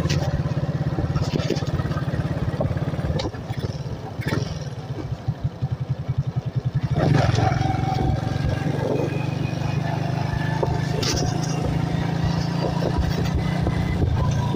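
Motorcycle engine running with wind noise, heard from the rider's seat while riding. About four seconds in, the engine note drops to a slow, uneven putter. From about seven seconds it picks up and runs steadily and louder.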